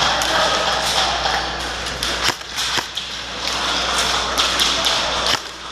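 Airsoft guns firing single semi-automatic shots: sharp cracks at an uneven pace, a few a second, over steady background noise.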